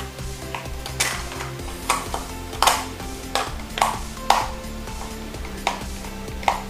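Small screwdriver working the screw of a plastic toy's battery cover: irregular sharp clicks and scrapes of metal on plastic, over soft background music.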